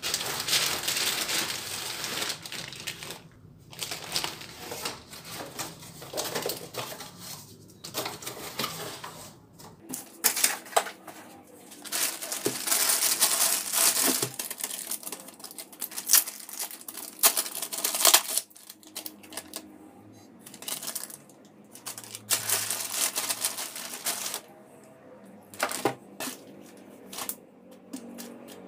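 Clear plastic packaging bag crinkling and rustling as it is handled and opened, mixed with many sharp clicks and taps as the sun shade's strips and rails are moved about. It comes and goes in busy stretches with short quieter gaps.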